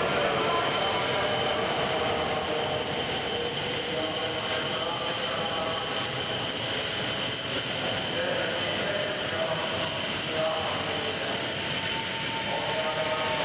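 E5 series Shinkansen train pulling slowly into a station platform: a steady rumble of the moving train over a continuous high-pitched whine.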